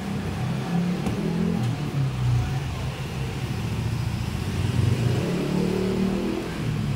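Low engine rumble of a running motor vehicle, its pitch rising and falling.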